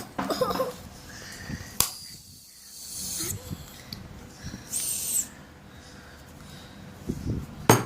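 Aerosol shaving foam sprayed from its can into a bowl in short hissing bursts, with a couple of sharp knocks of the can or utensil against the bowl.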